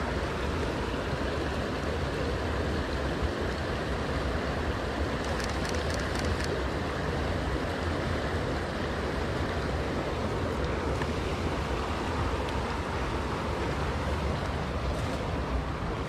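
Steady rushing of a forest creek, with a few faint crackles about five seconds in.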